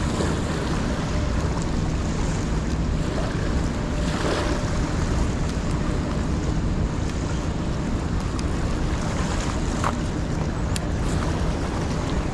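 Steady wind buffeting the microphone, a rushing noise heaviest in the low end, with water lapping underneath and a few faint clicks near the end.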